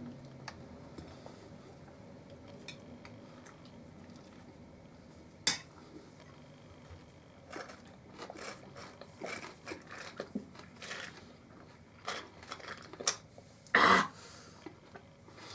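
Quiet eating at a table: soft chewing and small clinks and rustles of cutlery and food. There is one sharp click about five seconds in and a short, louder noise near the end.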